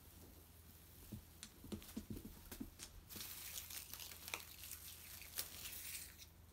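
Metallic party-popper streamers crinkling and rustling as a cat tugs and bites at them. A few soft thumps come in the first half, then a denser crinkling runs for about three seconds.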